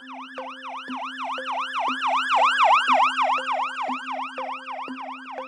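Ambulance siren in a fast yelp, its pitch sweeping up and down about four times a second, growing louder to a peak in the middle and then fading as it passes.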